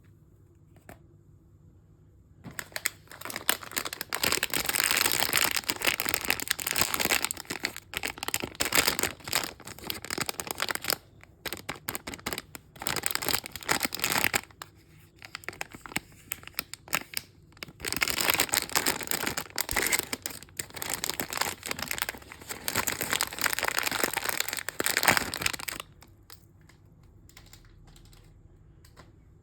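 A mystery-bag toy package being handled: crinkling and tearing sounds in several long bouts with brief pauses. It starts a couple of seconds in and stops a few seconds before the end.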